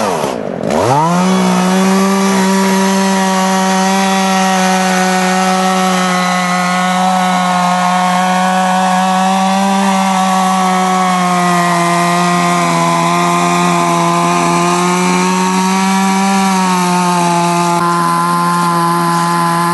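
Chainsaw revs up about a second in, then runs steadily at full throttle as it cuts through the trunk of a large tree being felled.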